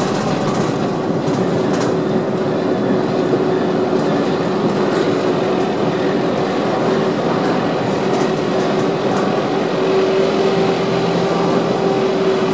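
Tram running along the track, heard from inside the driver's cab: a steady rumble of wheels on rail with a steady motor hum, louder near the end, and a few brief clicks from the rails.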